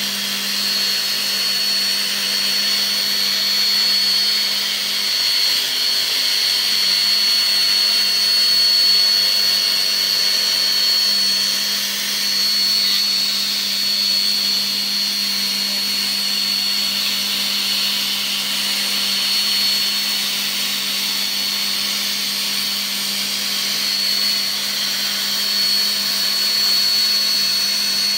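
CNC milling machine's spindle running with a steady high whine while an end mill cuts around the outline of a wooden instrument panel, over an even hiss of cutting.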